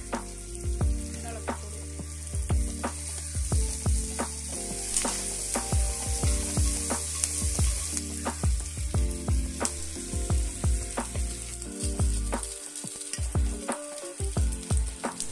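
Sliced onions, green chillies and curry leaves sizzling in hot coconut oil in a nonstick pan, stirred with a wooden spoon that knocks and scrapes against the pan many times.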